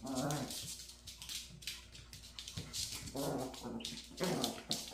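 Two small Maltese dogs play-fighting: three short bursts of low growling, with their claws clicking and skittering on a laminate floor.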